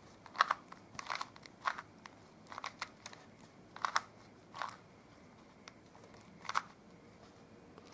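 2x2 Rubik's cube being turned by hand, its plastic layers clicking and scraping with each turn as an algorithm is run through: about eight quick turns spaced irregularly.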